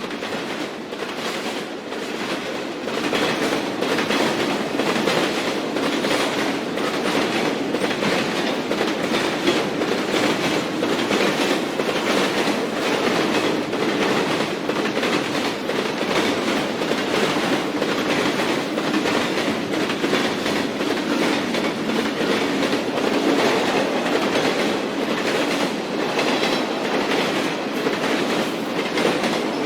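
Elevated train passing, its wheels clattering over the rail joints in a steady, regular rhythm. The sound builds over the first few seconds, then holds loud and even as the cars roll by.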